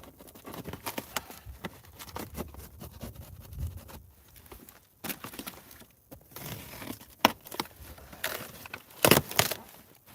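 A heavy-duty plastic packing strap being cut and the shipping packaging handled: irregular snips, clicks and rustles, with a few louder sharp knocks and scrapes in the second half.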